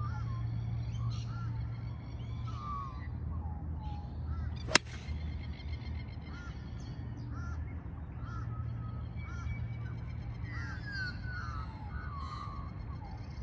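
A 3-iron strikes a golf ball off wet fairway turf about a third of the way in: one sharp crack. Birds chirp and call throughout.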